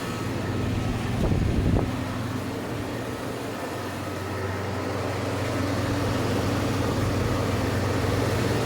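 1998 Kenmore window air conditioner running on high fan with its reciprocating Bristol compressor: a steady hum under a constant rush of air, with a brief louder rumble about a second in.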